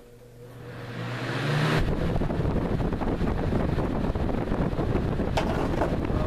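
General Electric box fan (model 106620) running on high: the motor hums as the blades come up to speed with a rising rush of air. About two seconds in, its airflow starts buffeting the microphone with a loud, steady wind rumble.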